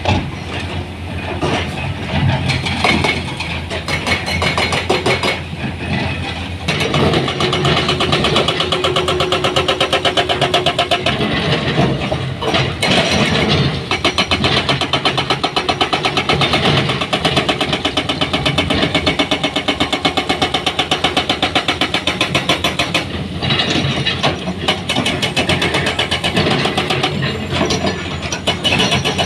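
An engine running with a fast, regular pulsing beat that is steadiest through the middle stretch and rougher near the start and end.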